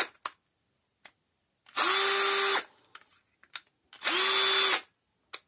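Granit cordless drill/driver motor run in two short trigger pulls of under a second each, spinning up and winding down each time, with faint clicks between. After the repair it runs normally.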